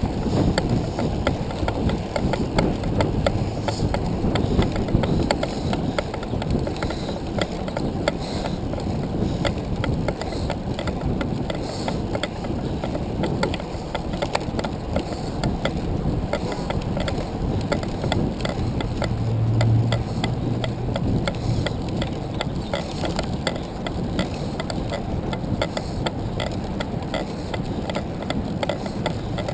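Wind rushing over a handcycle-mounted GoPro's microphone while the handcycle rolls along, with a constant fast ticking from the chain and drivetrain as the rider cranks.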